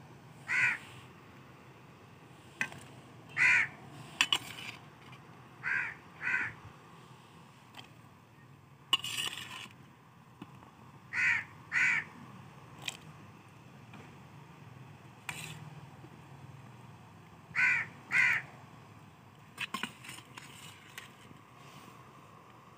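Crow cawing repeatedly, single caws and quick pairs every few seconds. A few light clicks and knocks are heard in between.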